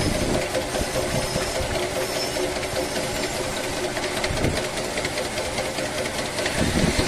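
Motor-driven single screw pump running steadily on test, a constant hum over a low rumble.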